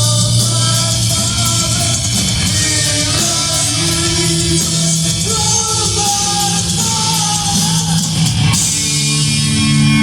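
Heavy metal band playing live through a club PA, with distorted guitars, drums with crashing cymbals, and a singer's voice over the top. About eight and a half seconds in, the cymbals cut and a held guitar chord rings on.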